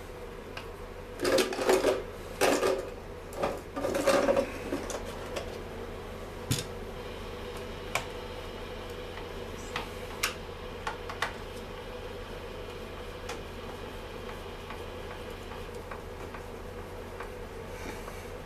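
Hand work on a Stihl MS 250 chainsaw with a screwdriver: three short spells of scraping and rattling in the first few seconds, then scattered light clicks and taps, over a steady low hum.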